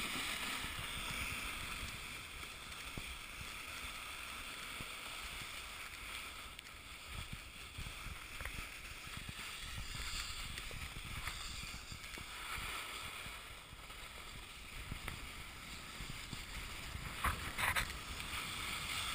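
Steady scraping hiss of a rider sliding down a packed-snow slope, with wind rushing over the action camera's microphone and a couple of sharper scrapes near the end.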